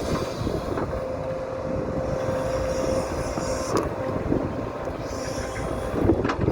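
JCB JS175W wheeled excavator working, its engine running steadily with a whine that holds for a few seconds in the first half. A sharp knock comes near the middle and a few more near the end.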